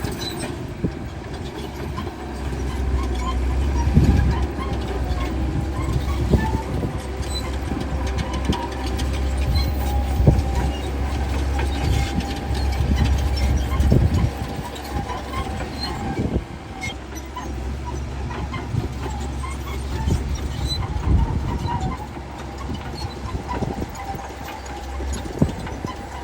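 Crawler bulldozer's diesel engine running under load, with the steel tracks clanking and knocking irregularly.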